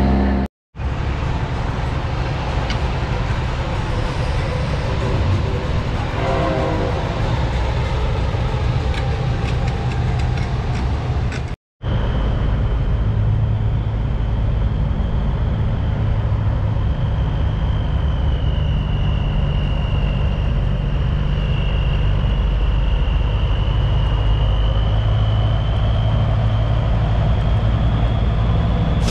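Big-rig semi trucks' diesel engines running and pulling away, a steady low rumble, with a brief horn chord around six seconds in. The sound drops out twice for an instant, about half a second in and near twelve seconds.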